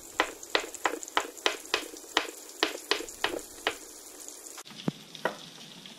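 Chef's knife slicing a cucumber into rounds on a wooden cutting board, knocking down on the board about three times a second, pausing about four seconds in, then two more cuts. Under it, a steady sizzle from a fish fillet frying in butter in a pan.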